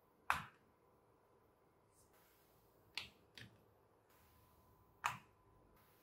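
Magnetic balls snapping together: four sharp clicks, one soon after the start, two close together about three seconds in, and one near the end.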